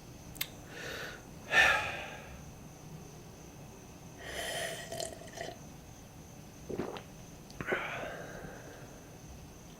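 Foley sound effects for making coffee: a string of separate short sounds, a click followed by a few breathy, hissy bursts and sharp knocks, the loudest burst about a second and a half in.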